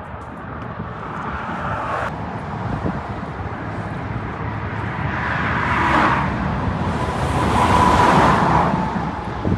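Highway traffic passing on the bridge, a steady rush of tyres and engines that swells as vehicles go by, loudest about six seconds in and again near the end, with a faint tyre whine.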